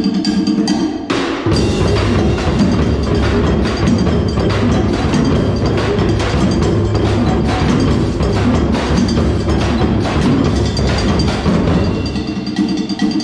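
Drum ensemble playing a steady, dense groove: hand-played djembes, a drum kit and a stick-struck part. The deep drum tones come in about a second and a half in and fall away near the end.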